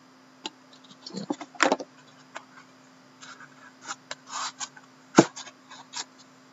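Hands opening a cardboard trading-card box: scattered scrapes, rustles and taps as the parts slide and are pulled apart, with one sharp knock about five seconds in. A steady low hum runs underneath.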